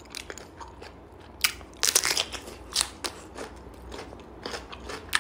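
Biting into a whole raw cucumber about a second and a half in, followed by irregular crisp crunches as it is chewed.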